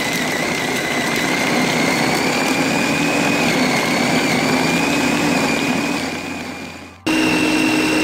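Electric meat chopper (food processor) running, its motor whining steadily as the blades grind beef with crushed ice into bakso paste. The sound fades about six seconds in, then cuts back in abruptly, running slightly higher.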